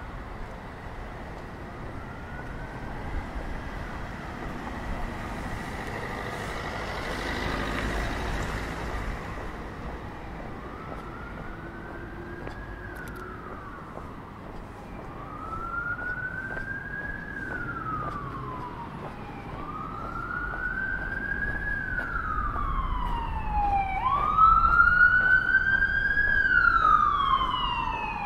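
Emergency vehicle siren wailing in a slow rise and fall, one sweep about every four to five seconds, growing louder toward the end as it approaches. Street traffic noise runs underneath, swelling briefly around eight seconds in as a vehicle passes.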